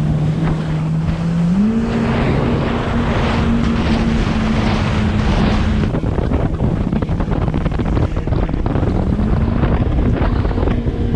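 Yamaha FX HO WaveRunner's four-stroke engine running at speed. Its note steps up in pitch about a second and a half in as the throttle opens, eases off around the middle and climbs again near the end. Water spray hisses off the hull, with wind on the microphone.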